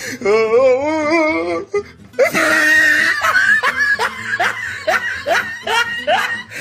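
Comedy meme sound effects: a wobbling, warbling voice-like note for about a second and a half, then a burst of rapid laughter, about three rising 'ha's a second, over music.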